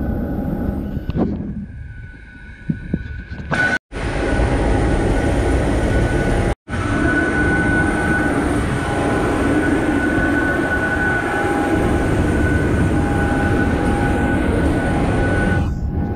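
Parked jet airliner running on the apron: a loud steady rush of noise with a high, even whine over it. The sound drops away briefly twice in the first half.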